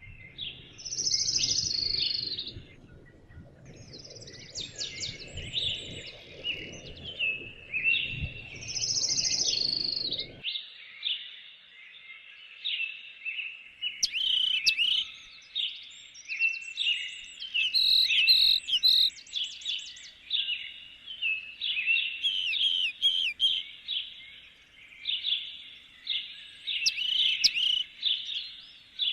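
Several songbirds singing at once: overlapping chirps, trills and whistled phrases. A low rumbling noise underneath cuts off abruptly about a third of the way through.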